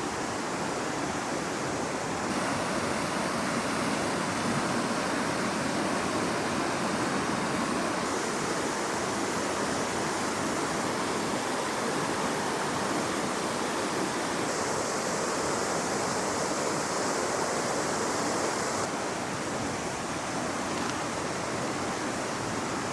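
Steady rush of a fast-flowing, swollen mountain river, with its tone shifting abruptly a few times.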